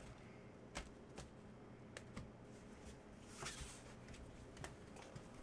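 A handful of faint, scattered clicks of clear plastic trading-card cases knocking together as a stack of cased cards is handled, over near-silent room tone.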